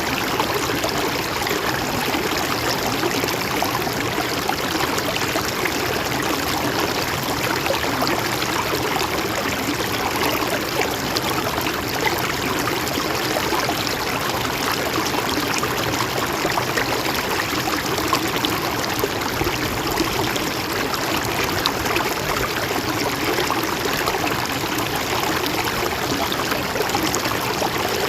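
Mountain stream flowing over stones, a steady gentle splashing and trickling.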